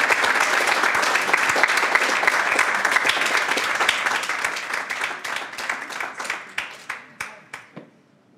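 Audience applauding, dense at first, then thinning after about four seconds to scattered single claps that die out just before the end.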